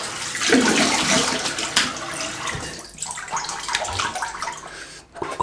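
Cold water splashed onto the face over a bathroom sink, a rinse after shaving, with running and splashing water. The splashing eases off about three seconds in, leaving a few drips and small knocks.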